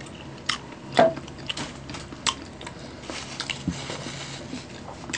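Close-miked eating sounds: chewing of a breaded chicken sandwich, with a string of short, sharp mouth clicks and smacks, the loudest about a second in. A soft rustle follows a little past halfway.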